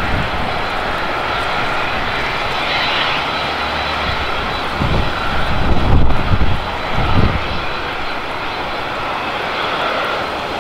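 Emirates Airbus A380's turbines running at low power with a steady whine, as the airliner is pushed back by a tug. A few low rumbling swells come in the second half.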